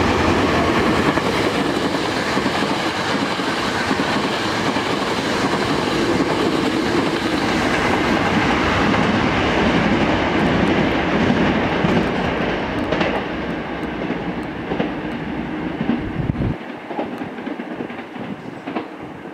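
Hankyu electric train passing through a station at speed: a loud, steady rush of wheel and rail noise with some clatter. It eases off and thins out about three seconds before the end, leaving a few sharp clicks.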